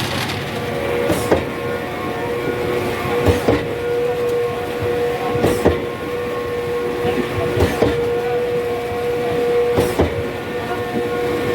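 Truck-mounted concrete pump at work: a steady engine and hydraulic hum, with a sharp double knock about every two seconds from its pumping strokes.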